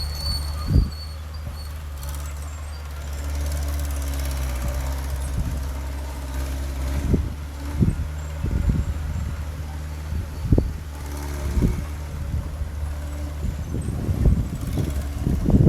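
Heavy earthmoving machine's engine running steadily at a low hum, with several sharp knocks and clanks scattered through and bunching up near the end.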